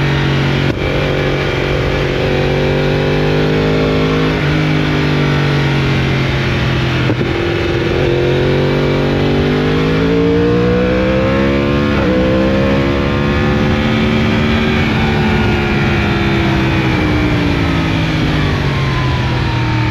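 Yamaha R1's crossplane inline-four through an Akrapovic exhaust, accelerating and easing off on the road: the engine note climbs and falls several times, with brief breaks where gears are changed.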